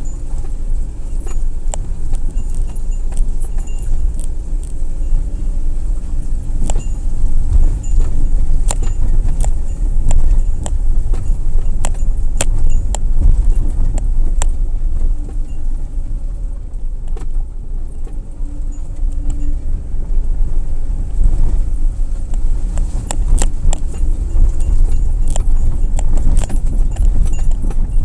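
Car driving slowly over a rough gravel road, heard from inside the cabin: a continuous low rumble with frequent sharp clicks and rattles.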